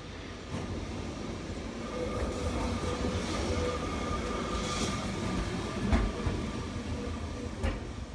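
Yellow Lisbon Remodelado tram running past on street rails, a steady rolling noise that builds as it comes close, with a faint steady whine and two sharp clicks of the wheels over the track near the end.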